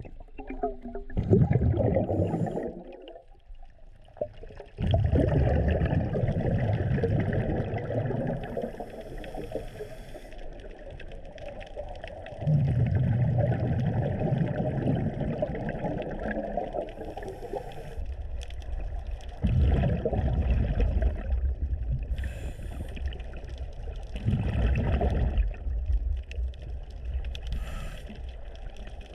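Scuba diver breathing through a regulator, heard underwater: about five bursts of rumbling, gurgling exhaled bubbles, each followed by a pause, with a short faint hiss from the regulator on the inhalations between them.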